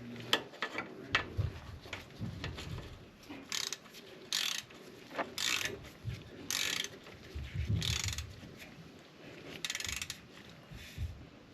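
Ratchet wrench clicking in about half a dozen short bursts of quick clicks, one per swing of the handle, as an oil plug on a Harley-Davidson Road Glide is run in and tightened to about 14 ft-lb.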